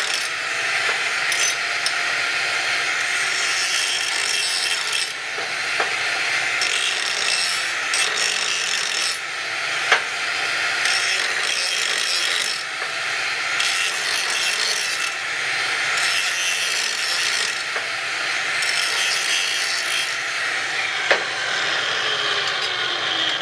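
Angle grinder grinding steel at steady speed, throwing sparks, with a couple of sharp knocks along the way. Near the end it is let off and winds down with a falling whine.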